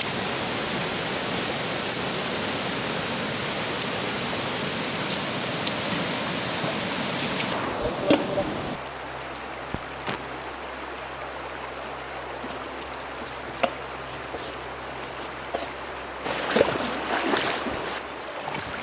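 A river rushing steadily over rocks. About nine seconds in the sound drops to a quieter background with a few light knocks, and near the end there are some splashes from a hand in the shallow water.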